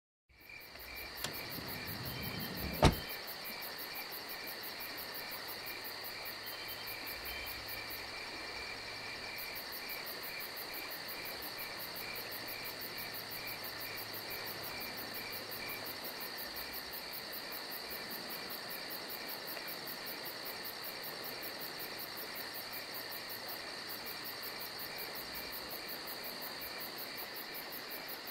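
Steady chorus of insects: a constant high buzz with a rhythmic pulsing chirp beneath it. A single sharp knock stands out about three seconds in.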